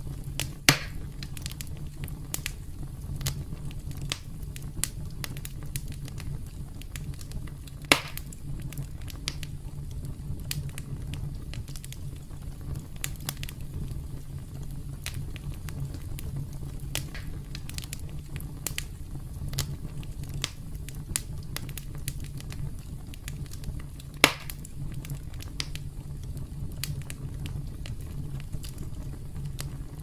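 Wood campfire crackling: frequent small pops and snaps over a steady low rumble, with three sharp, louder pops, about a second in, about eight seconds in, and about twenty-four seconds in.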